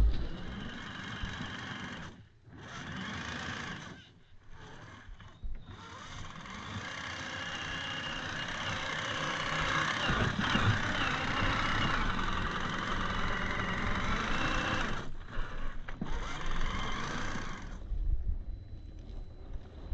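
Gmade GS02F Buffalo RC crawler's electric motor and geared drivetrain running as it drives. It cuts out briefly a few times under stop-and-go throttle, then stops near the end.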